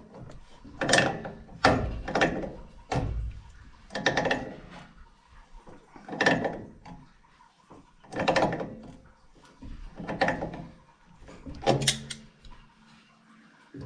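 A hand wrench turning a threaded fitting into the bottom of a brass Taco 4900 series air separator, tightening it stroke by stroke. The strokes come as short metallic bursts about every one and a half to two seconds, with quieter gaps between them.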